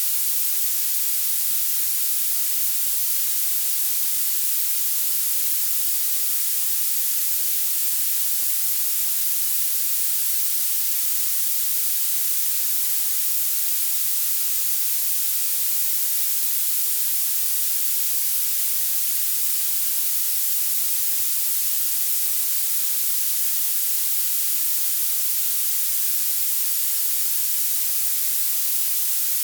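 Violet noise: a steady, even, high-pitched hiss, brightest in the treble and with almost nothing in the bass.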